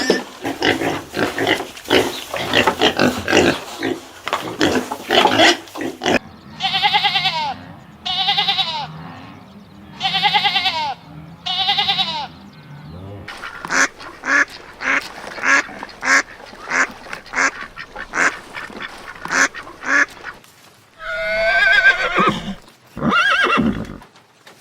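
A run of farm-animal calls: fast repeated calls for several seconds, then four separate pitched calls of about a second each, then more fast calls and two longer calls near the end.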